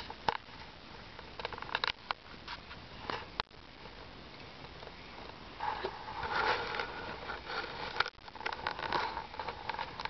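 Wood bonfire crackling, with sharp irregular pops from the burning logs and branches. The crackling grows denser and louder a little past halfway.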